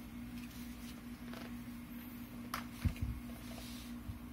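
Faint handling noises of rifle parts being picked up and moved on carpet, with a few light clicks and a dull thump about three seconds in, over a steady low hum.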